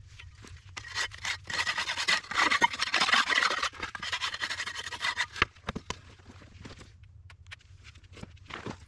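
Rasping scrape of a board or hand tool worked over fresh wet concrete and the top of the wooden form, screeding the footing level. Dense scraping starts about a second in and lasts about four seconds, then only a few light scrapes and clicks.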